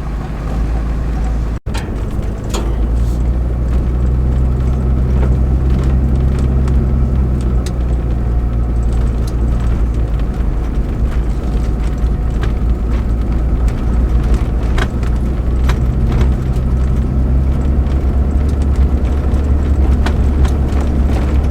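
A vehicle driving along a forest road, heard from inside the cab: a steady, loud low engine and road rumble with small scattered rattles and ticks. The sound drops out for an instant about a second and a half in.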